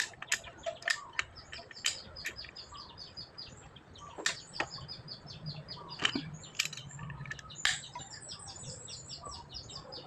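Small birds chirping rapidly and continuously, with a few sharp clinks scattered through.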